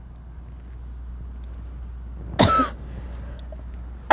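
A woman coughing on her first drag of cigarette smoke: one short, harsh cough about two and a half seconds in, and another breaking out right at the end.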